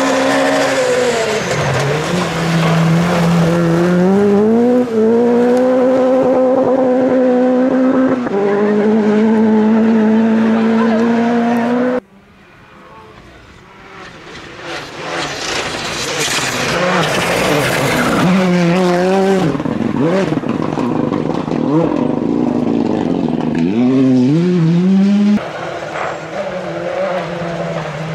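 Rally car engines at full throttle on a gravel stage, the engine note climbing and stepping down with each gear change. The sound cuts off abruptly about halfway, and a second car builds up, revving and shifting, before another sudden cut near the end.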